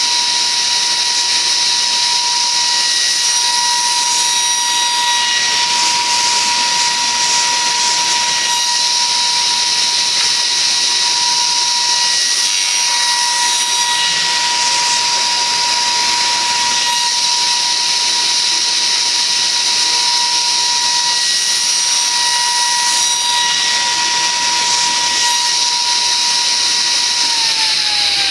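Table saw running at full speed with a steady whine, cutting small squares from a board; near the end it is switched off and the whine starts to fall as the blade winds down.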